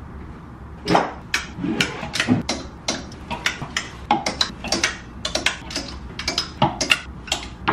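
Clothes hangers clicking and knocking against a metal wardrobe rail as clothes are hung up and pushed along it: many sharp clicks, two or three a second, irregular.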